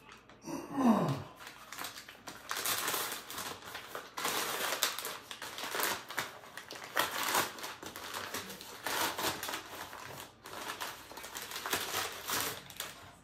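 Cardboard mailer envelope being torn open and its paper contents rustled and crinkled in repeated bursts, with a brief falling-pitch sliding sound about a second in.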